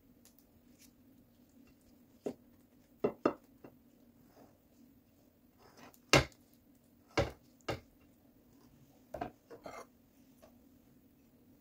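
Spoon knocking against a glass baking dish and a bowl as tomato sauce is scooped and spread: a handful of short, sharp knocks, the loudest about six seconds in and a quick pair near three seconds.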